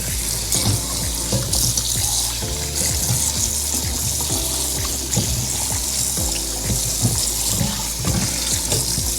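Kitchen tap running steadily into the sink, rinsing raw chicken legs in a colander.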